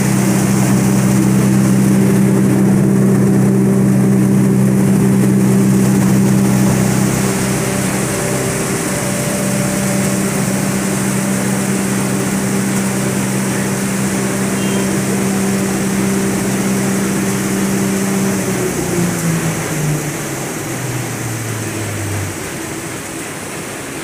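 Sawdust grinder machine running with a steady hum, then switched off about three-quarters of the way in, its pitch falling over a few seconds as it winds down. A steady noise carries on underneath.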